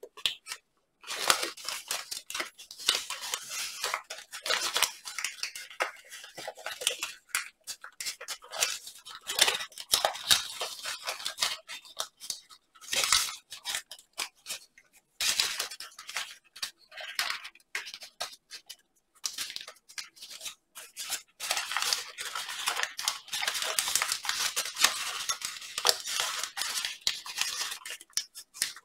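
Paper crinkling and rustling as a folded origami model is creased and shaped by hand. It comes in irregular crackly bursts with short pauses between them.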